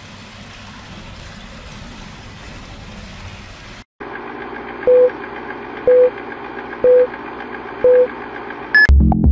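A steady hiss for about four seconds that cuts off. Then a film-leader countdown: four short, loud mid-pitched beeps one second apart over a steady hum, and one brief higher beep. Electronic music with a heavy bass beat kicks in right at the end.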